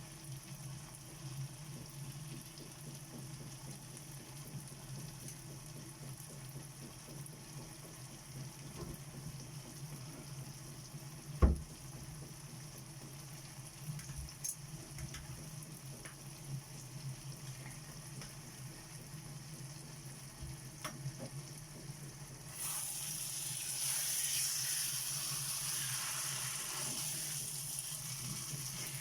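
Chopped tomato and red bell pepper sautéing in oil in a pan over a low flame, sizzling quietly, with a steady low hum underneath. A single sharp knock sounds about a third of the way through, and the sizzling grows clearly louder about three-quarters of the way in.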